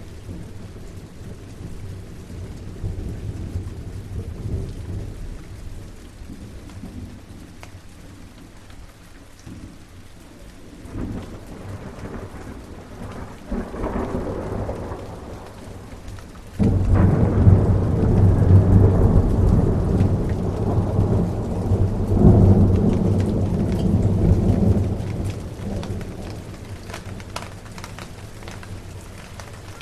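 Steady rain with thunder. Low rumbles come early and again near the middle. Then, just past halfway, a sudden loud thunderclap rolls on for about eight seconds, swelling once more before it fades back to the rain.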